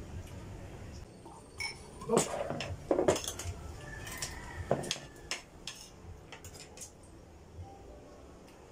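Cutlery and glassware clinking: a metal spoon tapping and scraping on plates and a glass in a string of sharp clinks, loudest about two and three seconds in, then fainter ones.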